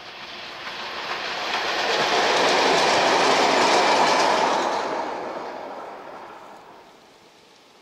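Diesel locomotive passing by on the line: its sound swells up over the first two seconds, is loudest for a couple of seconds, then fades away over the last few seconds as it recedes.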